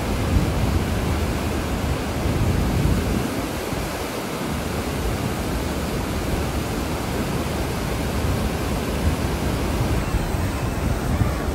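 Turbulent water rushing through the outflow below a dam, a steady, loud noise.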